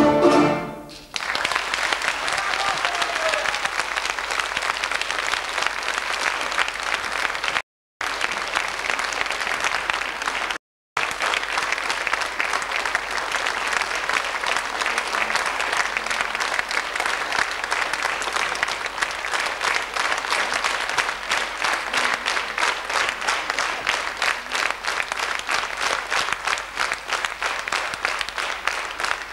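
The music ends about a second in, and a large concert audience applauds steadily from then on. Twice the sound drops out completely for a moment.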